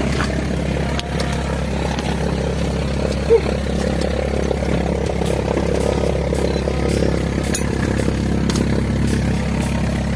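Steady engine drone with a constant low hum that neither rises nor falls, and a single brief knock about three seconds in.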